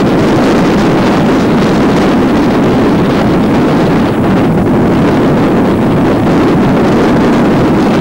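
Steady, loud wind buffeting the microphone on a fog- and drizzle-covered mountain top.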